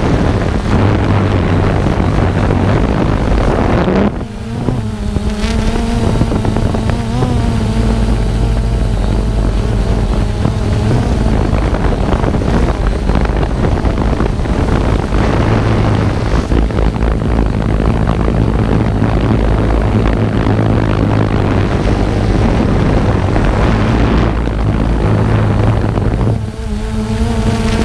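Small multirotor drone's propellers buzzing, their pitch wavering, under heavy wind rumble on the microphone.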